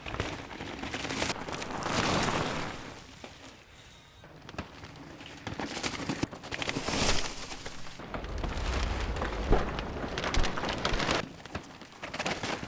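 Downhill mountain bike ridden fast on a dirt trail: tyres skidding and crunching through loose dirt, with sharp knocks and rattles from the bike over rough ground. The sound swells and fades over several passes, with a deep rumble for a few seconds past the middle.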